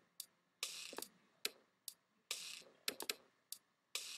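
A sampled drum pattern looping from the EXS24 sampler: a short, hissy snare-like hit about every 1.6 seconds, with sharp clicks between, and almost nothing in the deep bass.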